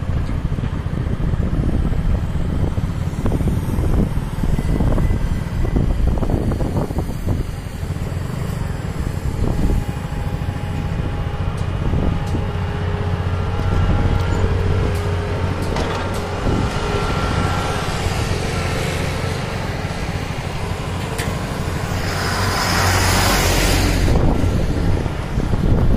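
Steady engine and road rumble of a moving vehicle, heard from on board, with a louder rush of hiss near the end.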